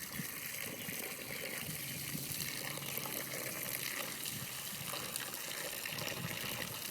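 Steady running water: a garden hose pouring water into a flooded sandbox.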